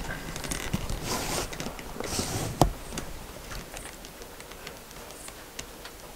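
Rustling and small clicks of a camera and gear being handled, with one sharp click about two and a half seconds in, the loudest sound; quieter in the last few seconds.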